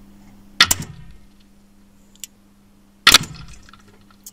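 Two .22 Short rimfire rifle shots about two and a half seconds apart, each a sharp crack with a short echo in the small range, with a small click between them.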